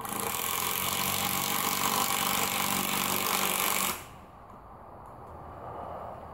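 Power drill running at full speed into the wooden frame for about four seconds, a steady motor whine with a rattle, then stopping suddenly.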